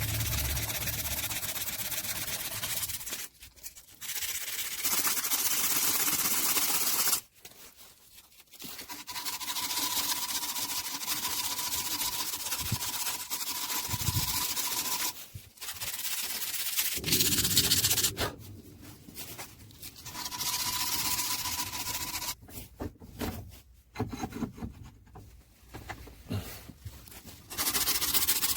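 Parts of an old hand drill being sanded: a steady abrasive rubbing in stretches of a few seconds, broken by short pauses, with a faint steady whine under two of the stretches.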